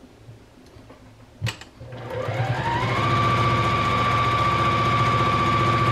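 Domestic electric sewing machine stitching fabric onto a muslin foundation: after a single click, the motor speeds up over about a second into a steady hum and runs until it stops near the end.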